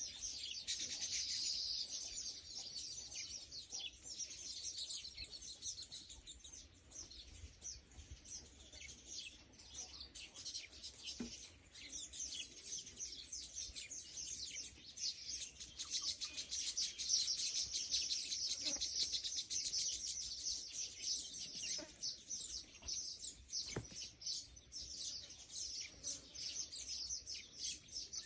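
Many small birds chirping, a dense and continuous run of rapid, high-pitched chirps, swelling louder in the middle.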